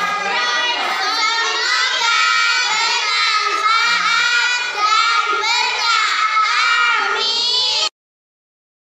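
A group of young girls singing together, their voices cutting off abruptly about eight seconds in.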